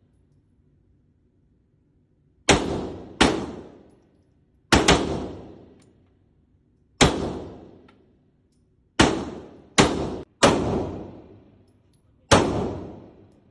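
Gunshots at a shooting range: about nine single shots fired at an uneven pace, two of them in quick succession, each followed by a decaying echo.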